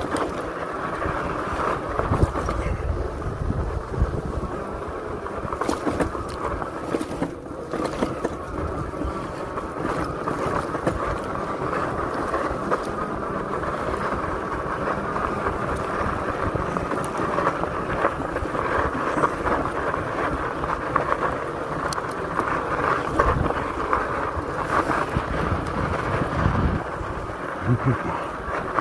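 A fat-tire electric bike riding downhill over loose sand and dirt: a steady rolling noise from the tyres on the trail. Wind gusts rumble on the microphone a few seconds in and again near the end.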